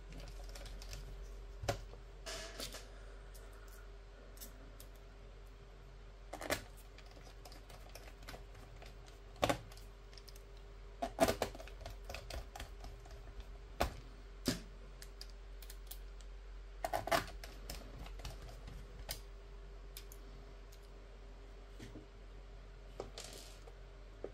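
Irregular clicks, taps and light knocks of hands handling a laptop's plastic bottom case, with a few louder knocks in the middle. A faint steady hum runs underneath.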